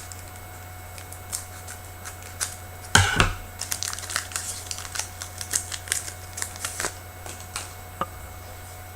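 Trading card pack being opened and the cards handled: a louder burst of crinkling about three seconds in, then a run of small crinkles and clicks as the wrapper and cards are worked through.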